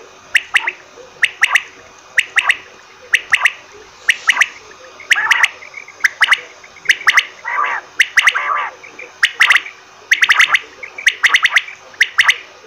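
Common quail calling: quick groups of two or three sharp whistled notes, repeated about once a second, with a few lower, fuller calls mixed in around the middle.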